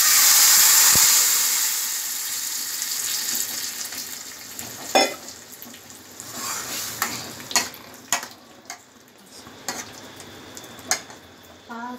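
Mashed boiled vegetables and dal poured into a hot peanut-oil tempering in a kadai, sizzling loudly at first and dying down over about four seconds. Then a ladle stirring, with a string of sharp clinks and scrapes against the pan.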